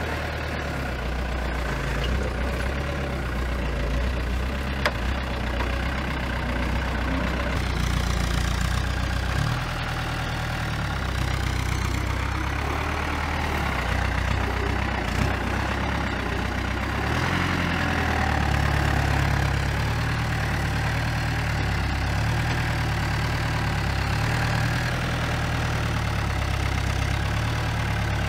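Diesel engine of an Iveco truck rebuilt as a forklift, running steadily as it drives and carries crates, its engine note shifting twice along the way.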